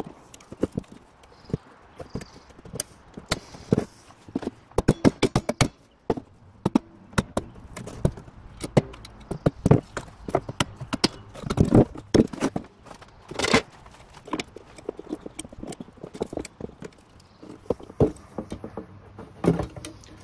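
Irregular clicks, knocks and clatter of hand tools and metal parts handled on a wooden workbench, as a brake lining block is set on a steel brake band and clamped in place with locking pliers.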